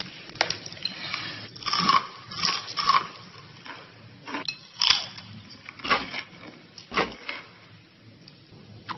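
Crunching and chewing of crispy fried chicken close to the microphone: a string of crisp crunches about once a second, with wet mouth sounds in between.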